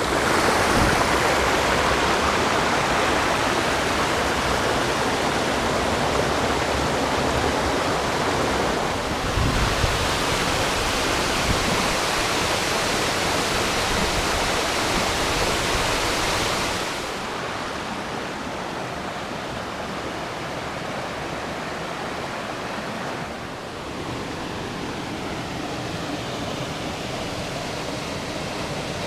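Waterfall: a steady, even rush of falling water. The sound steps down to a lower level a little past halfway through and stays there.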